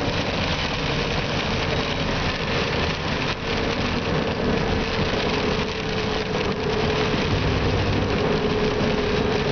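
Inside a car's cabin while driving at highway speed on a wet road: a steady engine drone over the hiss of tyres on wet pavement.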